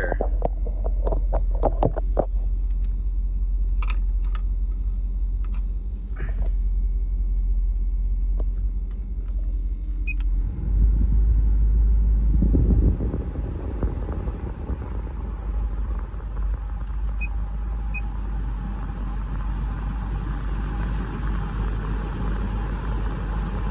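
2000 Land Rover Discovery's engine idling steadily, with a few clicks as the climate controls are worked in the first seconds. About eleven seconds in the low rumble swells briefly, then a steady rush of air from the air-conditioning blower joins the idle.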